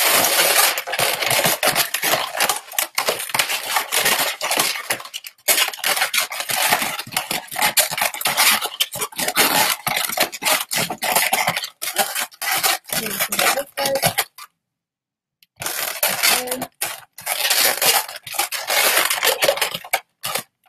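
Inflated 260 latex modelling balloons squeaking and rubbing against each other as they are twisted and tied together, a dense crackling rub that stops for about a second partway through.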